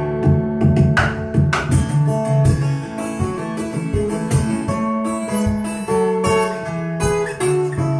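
Acoustic guitar playing an instrumental passage of quick plucked notes, with no singing.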